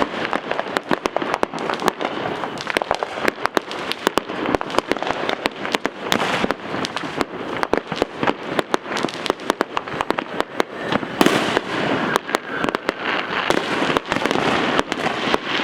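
Dense, continuous crackling and popping of fireworks, many sharp cracks a second with no pause.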